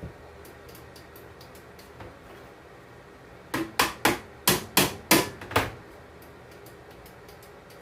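Someone banging on the housing of an electric melting furnace: a few light clicks, then about seven sharp knocks in quick succession about three and a half seconds in. It is an attempt to knock its dead display back to life.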